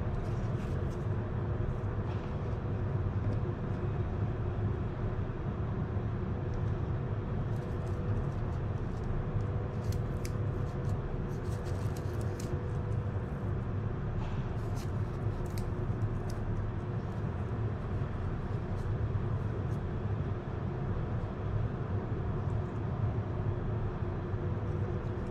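Steady low background rumble with a faint constant hum, and scattered light clicks and taps from a PVC pipe and plastic caps being handled, mostly in the middle stretch.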